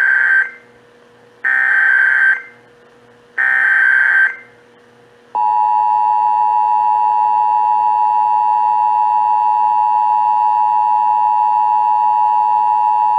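Emergency Alert System test tones: the end of one burst of the SAME digital header, then two more, about two seconds apart, each a second-long screechy data warble. About five seconds in, the EAS attention signal starts, two steady tones (853 and 960 Hz) sounding together.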